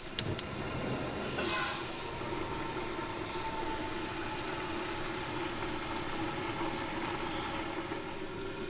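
Steady hum while pork cubes and onion cook under a glass lid in a pan on a lit gas burner, with a couple of clicks at the start and a short hiss about a second and a half in.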